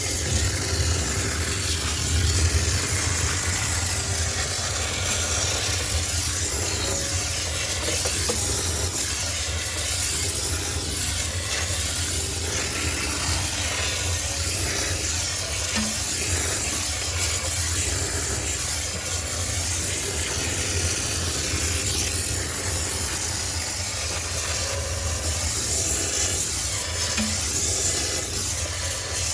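High-pressure steam cleaner spraying with a steady hiss over a constant low machine hum.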